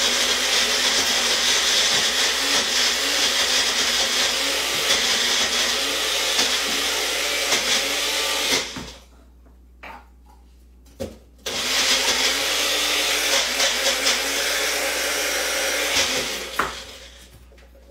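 Small countertop blender pureeing chipotle chilies in adobo sauce. It runs steadily for about nine seconds, stops for a few seconds with a couple of light knocks, then runs again for about five seconds.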